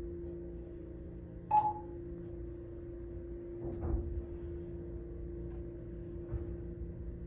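ThyssenKrupp hydraulic elevator car descending one floor, with a steady hum throughout. One short electronic beep sounds about a second and a half in. A low thump follows near four seconds in.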